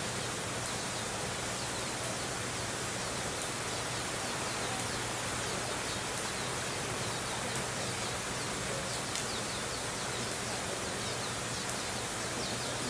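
Steady outdoor background hiss, with faint short high chirps repeating through it.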